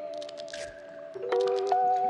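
Background music: held chords that shift to a new chord about a second and a half in, with short clicky accents over them.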